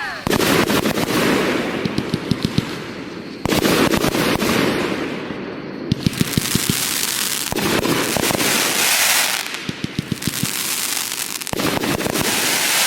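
Aerial fireworks going off in a show: a run of sharp pops and dense crackling over a fizzing hiss, coming in about five waves a few seconds apart.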